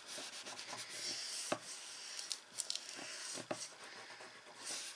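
Faint rubbing and handling of cardboard and paper as a glued flap is pressed down by hand, with two light clicks about two seconds apart and a few softer ticks.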